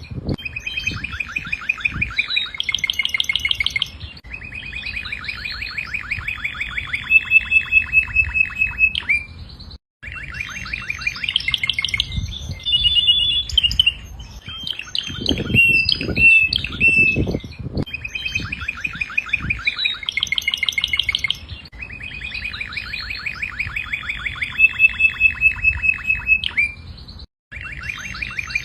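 Domestic canary singing long phrases of fast rolling trills, one tour after another. The song cuts out abruptly twice, about ten seconds in and near the end, and a few low thumps come in the middle.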